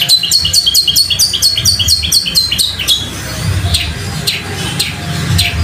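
Long-tailed shrike (cendet) singing a fast roll of sparrow-like fighting chirps, about eight quick falling notes a second. About three seconds in it eases to sparser chirps.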